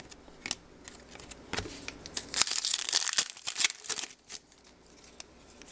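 Trading cards handled by hand, with light clicks and rustles. About two and a half seconds in, a crinkling of plastic packaging lasts a little under two seconds.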